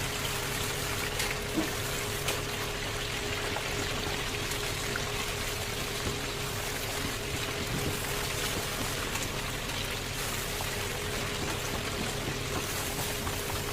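Chicken deep-frying in hot oil: a steady sizzle, with a faint steady hum beneath and a few light clicks in the first couple of seconds.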